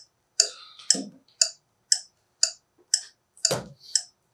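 Clock ticking steadily, about two sharp ringing ticks a second, with a softer rustle about a second in and a heavier thump about three and a half seconds in.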